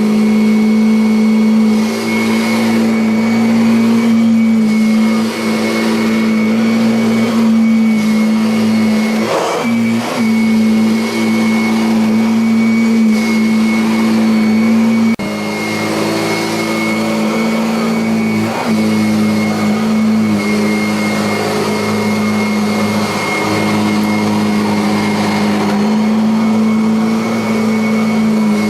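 Kirby Avalir upright vacuum cleaner running steadily on carpet, a loud motor hum with a high whine over it. There is a slight drop and change in tone about halfway through as it is worked over the floor.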